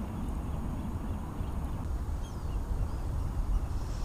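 Lakeside outdoor ambience: a steady low rumble with a few faint bird chirps.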